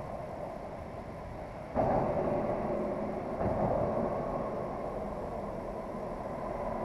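Traffic crossing the bridge overhead: a steady road hum that swells suddenly about two seconds in and again about three and a half seconds in as vehicles come onto the deck, then slowly fades.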